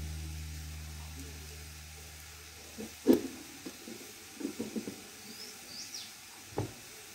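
Background music fading out, then a clay pot of leafy greens cooking over a wood fire: a faint hiss with one loud sharp knock about three seconds in and scattered smaller clicks and crackles after it. A few quick bird chirps near the end.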